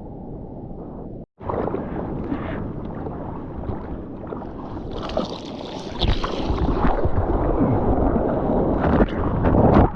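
Ocean water sloshing and splashing with wind buffeting the microphone, broken by a short cut about a second in and growing louder after about six seconds.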